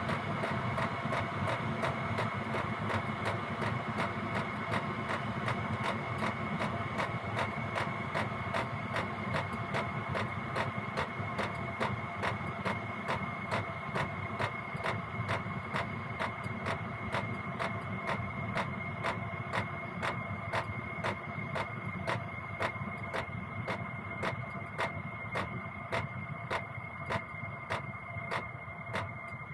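Gearlasso 8 kW diesel heater running, its fan and burner making a steady noise over the regular ticking of the fuel dosing pump. It slowly gets quieter and less bright as the heater winds down from high output toward its lowest power setting, the pump slowing.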